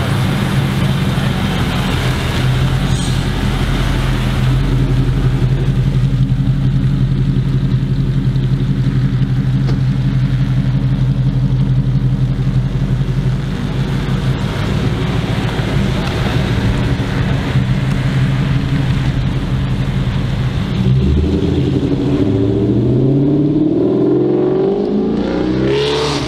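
Chrysler 300 SRT8's 6.1-litre Hemi V8 through a Solo Performance street race cat-back exhaust, idling steadily with a deep, even exhaust note. About 21 seconds in, the revs climb in one long rise over the last few seconds.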